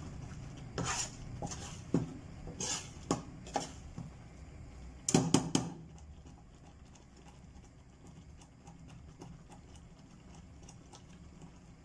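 Spoon and glass pot lid knocking and clinking on the cookware: several separate knocks in the first few seconds and a quick cluster about five seconds in, then faint kitchen room tone.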